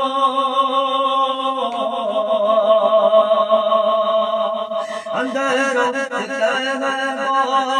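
A man's voice singing a naat unaccompanied, drawn out on vowels without clear words: a long held note that steps down in pitch about one and a half seconds in, then quick wavering ornaments from about five seconds in.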